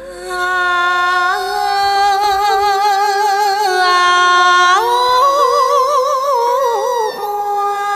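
A woman singing long, drawn-out notes with no clear words, holding each pitch. About halfway through her voice rises to a higher note with a wide wavering vibrato, then falls back.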